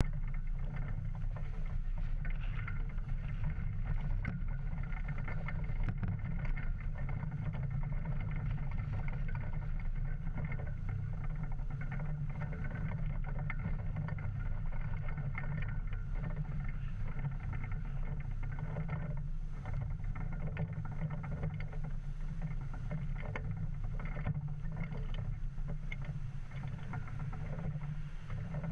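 Steady wind buffeting the microphone, mostly a low rumble, with a polyester flag flapping on its flagpole in short irregular flicks.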